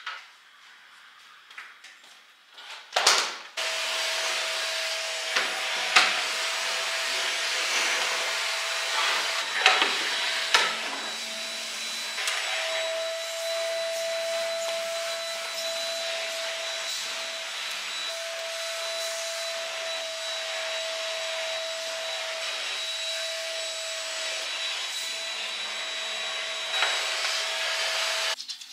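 Handheld vacuum cleaner switched on about three seconds in and running steadily with a steady whine as it is worked over sofa cushions, with a few knocks as it is handled, then switched off near the end.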